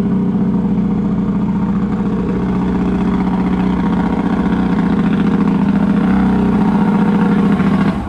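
Mini jet boat's pre-mix two-stroke three-cylinder engine running steadily at low speed as the boat comes in, then shut off suddenly near the end.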